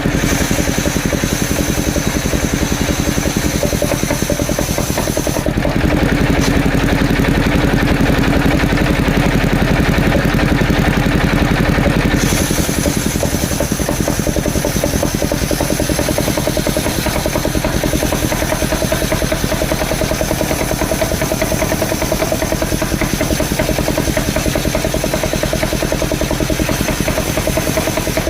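Engine of a motorised wood saw running steadily; its sound changes about five seconds in and again about twelve seconds in.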